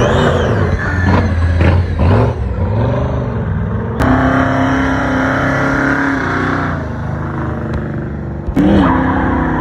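Supercharged V8 muscle car revving hard, its engine note climbing and dropping several times. After a cut, a steady held engine note plays for about four seconds. Near the end, after another cut, a second engine revs quickly up and down.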